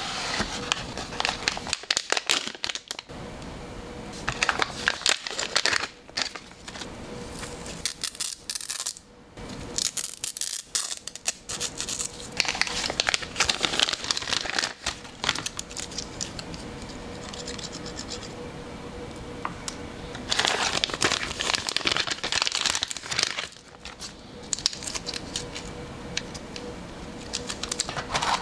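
Clear plastic zip-lock bags crinkling and rustling as they are handled, among irregular taps and scrapes of the cardboard box and its contents. The rustling comes in bursts, loudest about halfway through and again a few seconds later.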